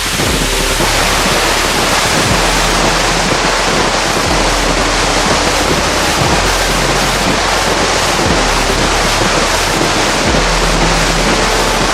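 Loud, steady wash of noise from the fireworks display, over deep bass notes of the music track that change about every two seconds.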